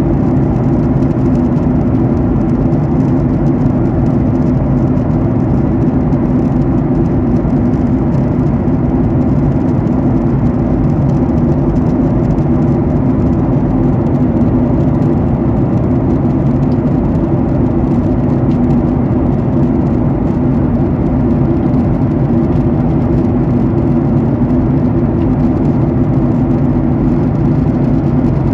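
Steady cabin noise of a Boeing 737-800 jet airliner in cruise: a constant low rumble of engines and rushing air with a steady hum, unchanging throughout.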